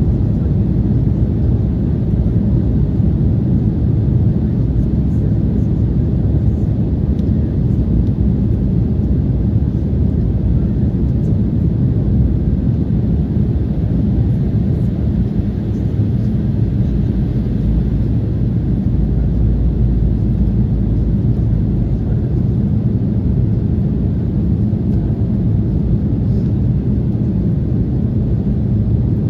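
Steady low cabin rumble of an Embraer 190 jet in flight, heard from a window seat over the wing: its wing-mounted GE CF34-10E turbofans and the rush of air over the fuselage.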